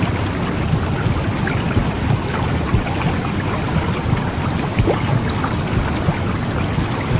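Womb sound for calming a baby: a steady, low, rushing noise with faint scattered crackles.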